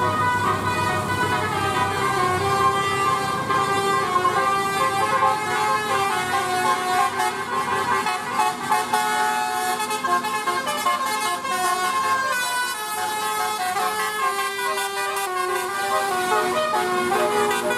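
Telolet bus horn: a multi-trumpet air horn playing a tune, several pitched tones stepping from note to note throughout.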